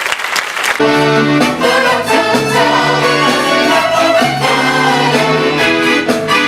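Applause fades out under a second in as a live stage band starts playing, with brass to the fore.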